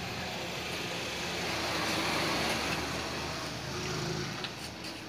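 A motor vehicle passing: a steady rushing noise that swells about two seconds in and fades away toward the end.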